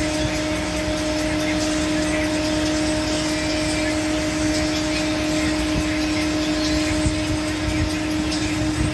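Steady machinery drone: a constant low hum with its overtone over a wide hiss, with one brief knock about seven seconds in.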